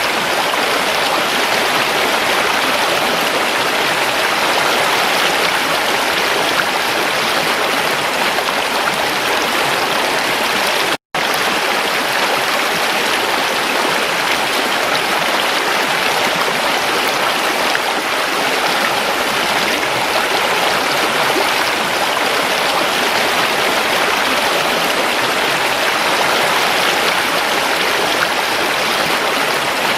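Creek water rushing steadily over rocks, a dense, even splashing with no lulls. About eleven seconds in the sound drops out completely for a split second.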